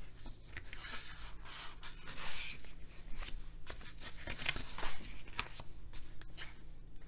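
Pages of a large hardcover book being turned and handled: a series of papery swishes and rustles, the loudest about two seconds in.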